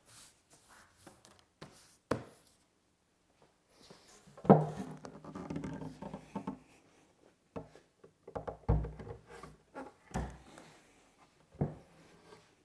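A solid-wood slab waterfall table being handled on a workbench: lifted, flipped upside down and set down on a rubber pad. A sharp knock about two seconds in, a loud knock with a short rumbling clatter about halfway, then several dull thumps as the table is set down near the end.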